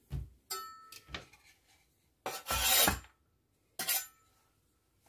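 Kitchen knife scraping and knocking against a wooden cutting board as chopped coriander is swept off it: a few short rubs and knocks, then one longer, louder scrape about two and a half seconds in.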